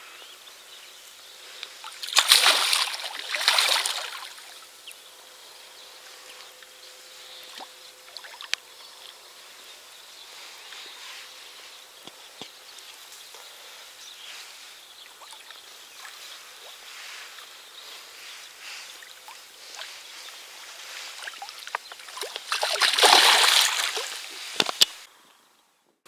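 Water splashing twice, once about two seconds in and again near the end, with a soft wash of water sound between: a hooked common carp thrashing at the river surface as it is played to the landing net.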